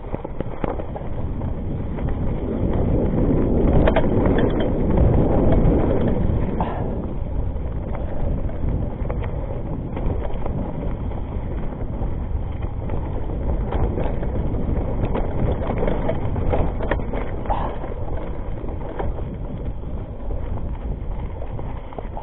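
Rockrider ST 520 mountain bike descending a dirt and rocky trail: wind rushing over the camera microphone mixed with tyre noise and the bike rattling, with scattered clicks and knocks. The noise is loudest about three to six seconds in.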